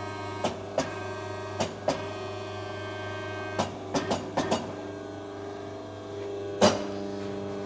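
Exhaust tube bender running with a steady hum and irregular clicks and knocks, the sharpest near the end, as a pipe is bent to about 40 degrees.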